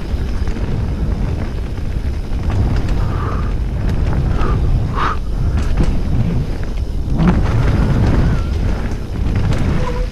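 Wind rumbling over a helmet-mounted camera's microphone during a fast mountain bike descent, with scattered clicks and knocks from the bike rattling over the dirt trail.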